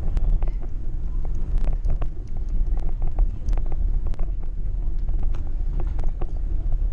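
Wind buffeting the microphone of a bicycle-mounted action camera while riding, a constant low rumble with frequent small clicks and rattles throughout.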